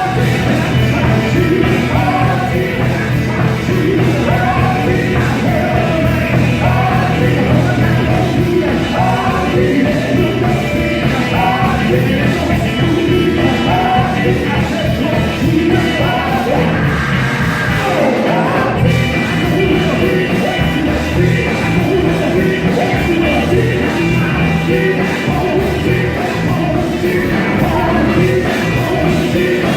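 Live gospel quartet music: a band with bass and drums playing under lead and group singing. The bass drops out for a moment about 18 seconds in, then the full band comes back.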